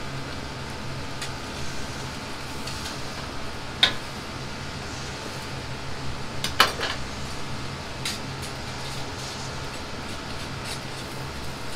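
Metal utensils clinking against a wok and pots on a gas range: a few sharp clinks, the loudest about four and about six and a half seconds in, over the steady rush of the gas burners.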